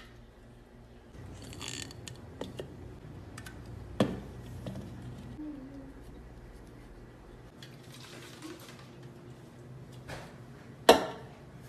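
Quiet handling of aluminium drink cans being stacked one on another, with a sharp knock about four seconds in and a louder knock near the end.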